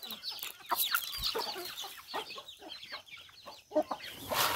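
A flock of domestic chickens clucking and calling, with many short calls overlapping, while they peck at scattered corn. There is a brief louder burst of noise near the end.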